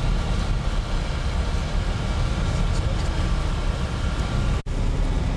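Steady low rumble of a tour bus driving on a gravel road, engine and tyre noise heard from inside the cabin. It cuts out for an instant near the end.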